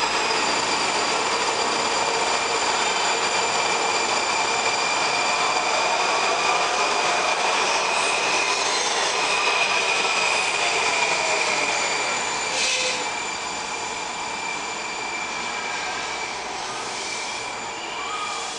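Six-car Washington Metro subway train running through an underground station without stopping, with a steady high-pitched wheel squeal over the rumble. After about twelve seconds it grows quieter as the train pulls away into the tunnel.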